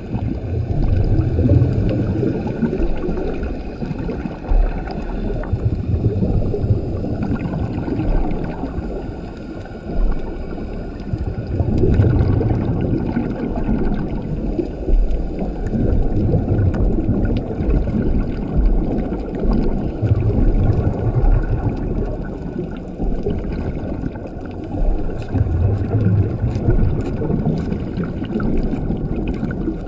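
A scuba diver breathing through a regulator underwater: the exhaled bubbles rumble and gurgle in bursts every five to eight seconds, with faint scattered clicking from the reef in between.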